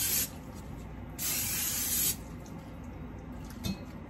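Aerosol can of Pam cooking spray hissing as oil is sprayed into a cake pan to grease it: a short burst right at the start, then a longer spray of about a second starting about a second in.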